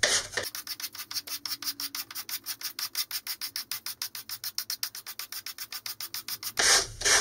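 Sandpaper on a sanding stick scraping across the edge of a fibre (cardboard) centering ring to round it over, in quick, even back-and-forth strokes, several a second. The scraping gets louder near the end.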